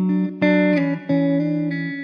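Background music led by plucked guitar, with notes and chords changing every fraction of a second and short breaks between phrases.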